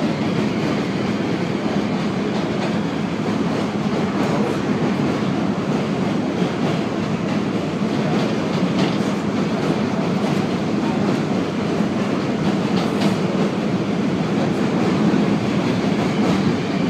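R32 subway car running steadily at speed, heard from inside the car: a constant rumble of wheels on rail, with a few faint clicks of rail joints.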